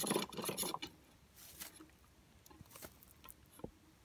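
Thin metal rod sliding through a hole in a square metal post: light metallic scraping and clicking, mostly in the first second, then a few faint ticks.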